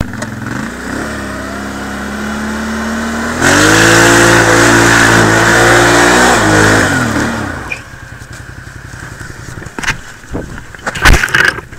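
ATV engine running, then revving hard at full throttle for about three and a half seconds on a steep sand climb before dropping away. Near the end come a couple of heavy thuds, the loudest about eleven seconds in, as the quad flips over.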